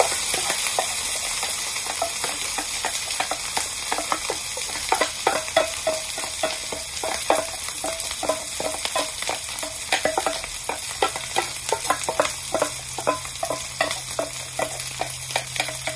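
Wooden spatula scraping and tapping egg fried rice out of a pot into a hot wok, oil sizzling beneath. The sizzle is strongest near the start; after that come several short scrapes and taps a second.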